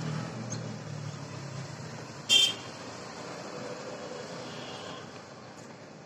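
Steady street background noise with a low rumble over the first couple of seconds, and one short, loud horn toot a little over two seconds in.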